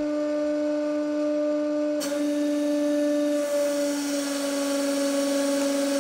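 A 150-ton hydraulic press running with a steady hum from its pump. About two seconds in, a hiss joins the hum as the ram starts moving down toward the screw.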